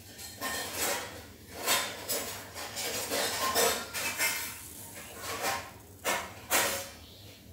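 Jute burlap cloth rustling and woollen yarn scraping through its weave as the stitch is pulled and the cloth is handled, a series of short irregular swishes.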